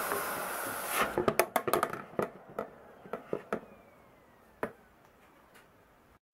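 Hitachi Koki RP35RYD2 dust extractor spinning down after being switched off: the suction noise fades and its whine slowly falls in pitch. About a second in comes a quick clatter of clicks and knocks from the nozzle and the plastic bowl being handled, then a few scattered taps.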